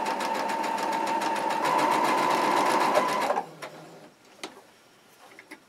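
Brother electric sewing machine running steadily, stitching a seam through the layered, pinned fabric with an even rapid needle rhythm and a motor whine. It stops about three and a half seconds in, followed by a few faint clicks.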